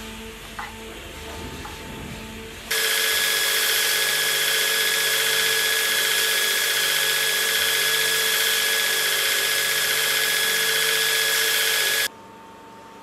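Belt grinder running while the edge of a leather scabbard is sanded on its contact wheel: a loud, steady whine that comes in abruptly about three seconds in and cuts off abruptly shortly before the end. Before it, a few light clicks of handwork at the bench.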